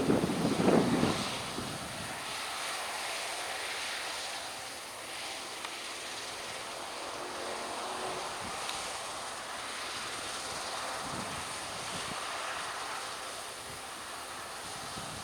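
Harvest machinery, a combine harvester and tractors, running steadily at a distance, an even drone. Wind buffets the microphone in heavy gusts for the first second or two.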